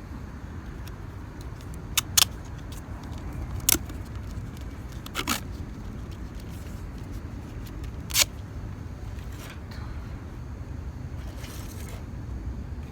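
About five sharp clicks or snaps spread over several seconds, two close together near the start, above a steady low rumble.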